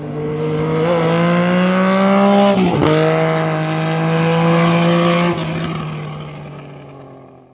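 An engine accelerating and rising slowly in pitch, with a sudden drop in pitch about two and a half seconds in like a gear change, then pulling up again before fading away near the end.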